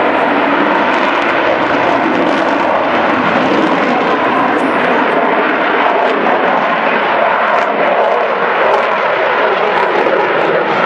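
Loud, steady jet noise from a Eurofighter Typhoon's twin Eurojet EJ200 engines in flight.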